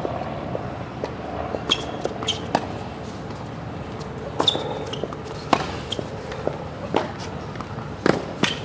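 Tennis rally on a hard court: sharp pops of the ball off the rackets and its bounces on the court, irregularly spaced about every half second to second, over a steady low background hum.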